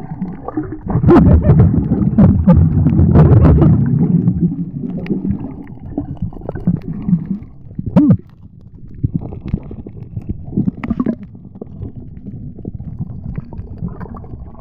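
Underwater gurgling and rumbling of water and air bubbles moving past the camera, with many sharp clicks. It is loudest for a few seconds about a second in, then settles to scattered gurgles and clicks.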